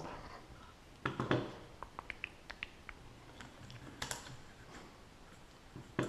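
Light scattered clicks and rubbing as hands handle a small plastic quadcopter drone and the styrofoam-ball floats fitted to its feet. The loudest cluster of clicks comes about a second in.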